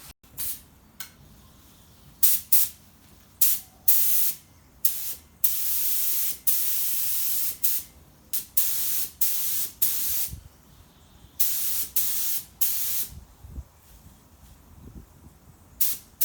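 Paint spray gun hissing in repeated short bursts, each starting and stopping sharply, as it lays on 2K clear coat.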